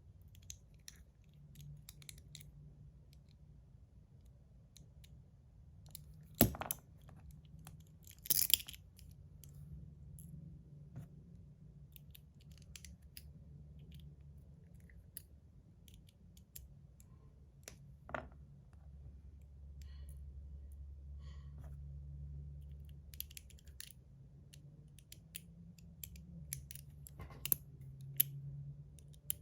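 Small screws being driven into a metal fidget slider with a small screwdriver while the mechanical liner is fitted: faint ticking and scraping, with a few sharper metal clicks and taps.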